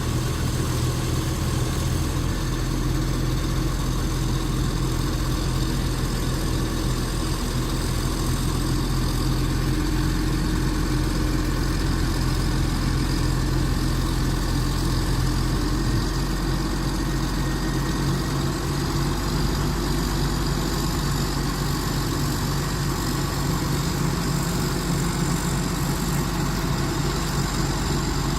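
Diesel engine of a PPM Terex A600 60-ton crane idling steadily, its low note shifting slightly about two seconds in and again about halfway through.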